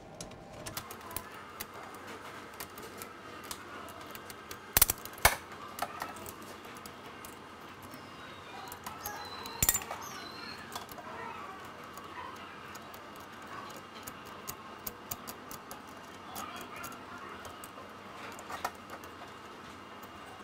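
Small metal clicks and taps of Yagi antenna parts being handled as screws are turned to fix a side dipole onto its bracket, with a few louder sharp knocks around five and ten seconds in.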